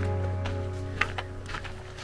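Background music with held notes over a steady low bass tone, fading out; a few light clicks about halfway through.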